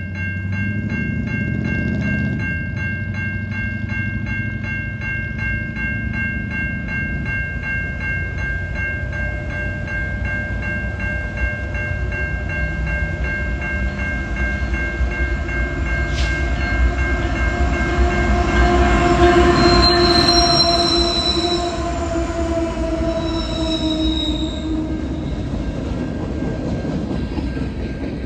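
Railroad crossing bell ringing steadily as a CN diesel-led freight train approaches. A locomotive horn chord sounds in the second half, loudest a few seconds before the locomotive reaches the crossing. Freight cars then rumble past over the rails near the end.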